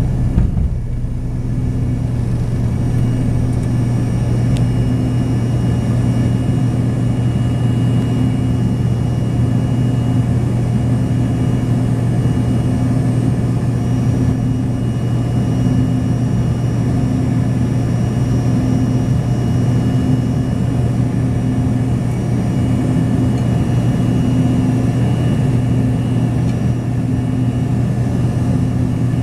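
Cabin noise of an Embraer regional jet climbing out after take-off: the engines at climb power give a steady, loud drone with a low hum that throbs slowly and faint steady whines above it.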